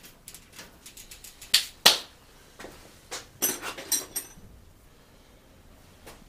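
Hand tools being handled and set down: scattered clicks and knocks, two sharp knocks about one and a half to two seconds in, then a cluster of clinks with a brief metallic ring around three and a half to four seconds.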